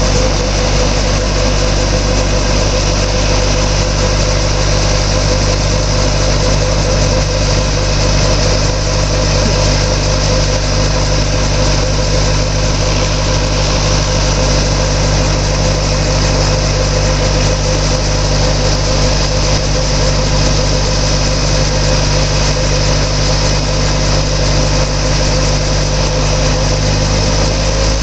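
Robinson R22 helicopter on the ground after startup, its four-cylinder piston engine running and rotors turning at a steady speed. A constant, even drone with no change in pitch or level.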